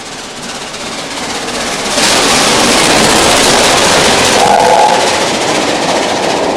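Peppercorn A1 three-cylinder steam locomotive approaching and running through at speed, growing louder over the first two seconds and then a loud, rushing noise of exhaust and wheels as it passes, with a brief tone about four and a half seconds in.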